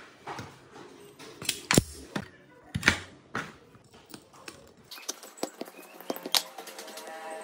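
Steel pliers clicking and knocking against metal parts: a string of sharp separate clicks, the two loudest about two and three seconds in, then a run of lighter clicks.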